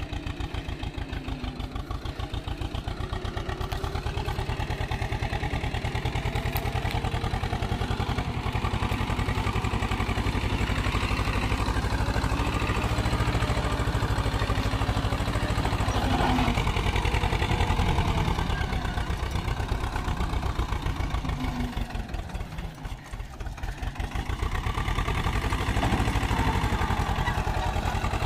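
Swaraj 724 XM tractor's diesel engine running hard with an even low pulsing as it hauls a fully loaded trolley through loose sand. Its level drops briefly about two-thirds through, then picks up again.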